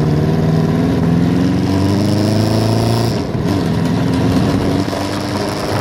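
Motorcycle engine running under way, rising in pitch as it pulls for about three seconds, then dropping suddenly and carrying on lower. It sounds bad; the rider says something is up with the exhaust.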